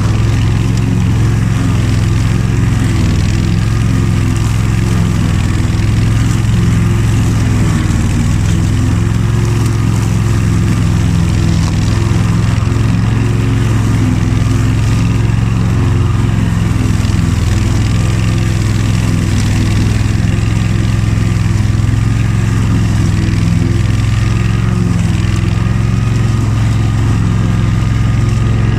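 Honda HF2622 ride-on lawn tractor's engine running steadily at an even speed, with no revving or dropouts.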